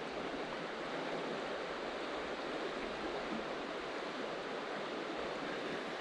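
A river flowing steadily, a constant rush of water from a river running high in flood.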